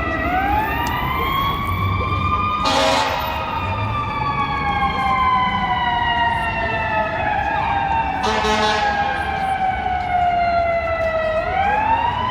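Emergency vehicle siren on a slow wail: it rises over about two seconds, then falls slowly for most of the rest and starts to climb again near the end. Two short, loud blasts cut across it, one about three seconds in and one about eight and a half seconds in.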